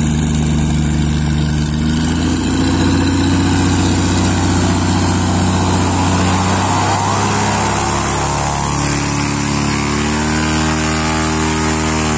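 Cessna 188 agricultural spray plane's piston engine and propeller running at low taxi power as the plane taxis up close. The engine note is steady, shifting in pitch about two seconds in and again around eight seconds.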